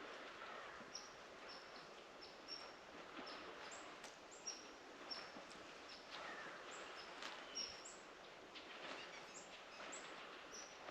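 Small birds chirping in the woods: short, high chirps repeating about once or twice a second over a faint background hiss, with a few soft clicks.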